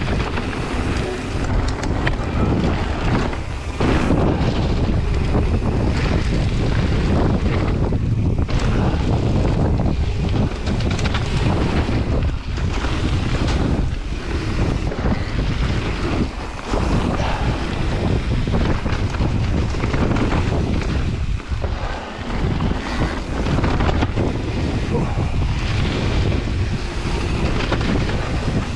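Wind rushing over the camera microphone on a mountain bike ride along a trail, with frequent knocks and rattles from the bumps.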